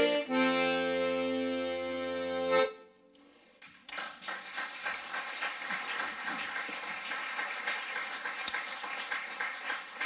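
Button accordion (melodeon) holding a steady final chord that stops abruptly about two and a half seconds in. After a second's pause, the audience applauds.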